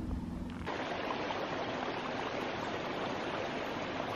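Shallow rocky mountain stream running over stones: a steady rushing hiss that cuts in under a second in, after a brief low hum.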